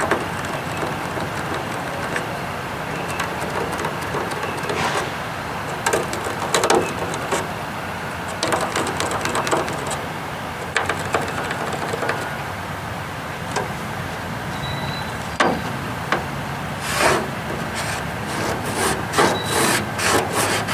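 A wooden transom board being handled and fitted: wood rubbing and scraping, with irregular knocks that come more often near the end.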